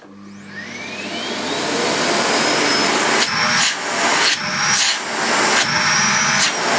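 Sebo K1 Eco cylinder vacuum cleaner switched on, its motor spinning up with a rising whine over about two seconds and then running loudly. From about three seconds in the airflow note changes three times, with a steady high whistle each time, as the hose end is blocked and released to test the bag check indicator.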